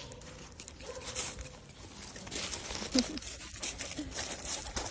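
Irregular scuffing and rustling as a scruffy terrier-type dog plays with a hand on gravel, with a soft click about three seconds in.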